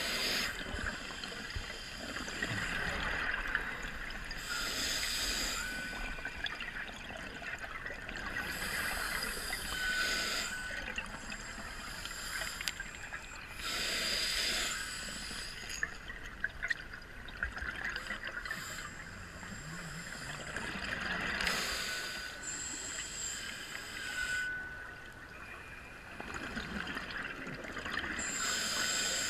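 Scuba diver breathing through a regulator underwater: about six gurgling bursts of exhaled bubbles every few seconds, with a quieter hiss between them as each breath is drawn.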